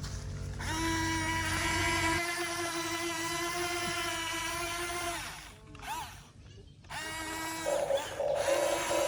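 Small electric motor of an RC model whining steadily, winding down with a falling pitch about five seconds in. It starts again shortly after with a pulsing tone.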